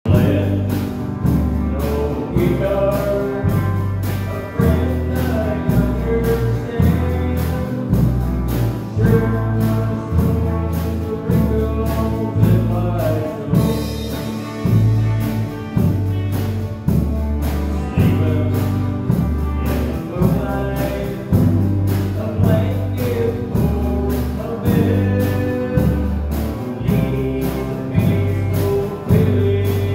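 Live rock band playing a song with a steady beat: bass guitar, acoustic and electric guitars and a drum kit, with a male lead vocal.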